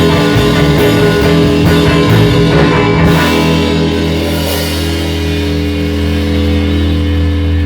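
A rock band rehearsing, with electric guitar and drum kit playing together. About three seconds in they land on a chord that is held and left ringing.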